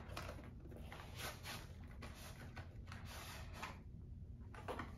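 Faint scraping and rustling of a slim packaging box being handled and its lid slid open, a few soft strokes with a quieter pause near the end.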